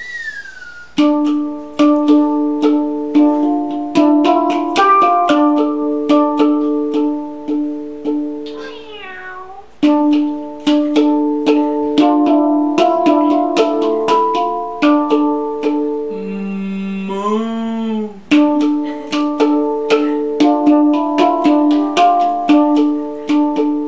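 A Hang, the steel handpan, played by hand: a steady rhythmic run of struck notes that ring on and overlap. Twice a gliding, wavering call cuts in, briefly about a third of the way through and for about two seconds near three-quarters of the way through.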